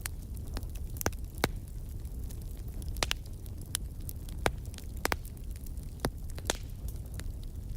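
Fire burning in a fireplace: a steady low rumble of flame with irregular sharp crackles and pops scattered through it.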